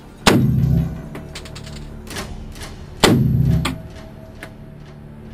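Two single shots from an M16 rifle fired on semi-automatic, about three seconds apart, each with a short booming tail, and lighter clicks between them.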